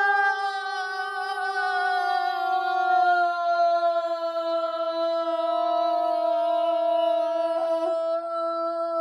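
A woman's voice holding one long sung note, the drawn-out end of a chanted 'video', its pitch sliding slowly down.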